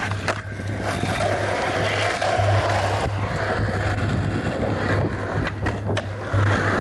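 Skateboard wheels rolling over asphalt with a steady rumble, broken by sharp clacks of the board popping and landing, once just after the start and a few times close together about five and a half seconds in.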